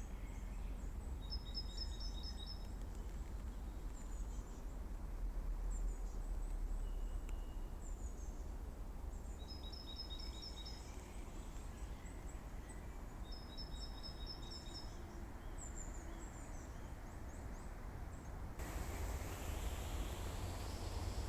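Small songbirds calling in woodland: a quick trill of even high notes, repeated three times, among short high falling chirps, over a steady low outdoor rumble. Near the end a louder hiss comes in.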